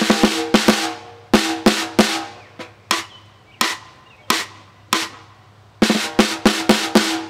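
Early-1990s 14" x 6.5" steel Ludwig Rocker snare drum, heads tuned a perfect fourth apart, played with wooden sticks. A quick run of strokes opens the passage, then single hits come about every two-thirds of a second, each ringing out, and a fast flurry of strokes returns near the end.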